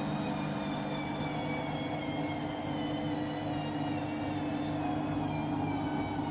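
Front-loading washing machine running with a bedding load: a steady motor hum and whine whose higher tones drift slowly in pitch.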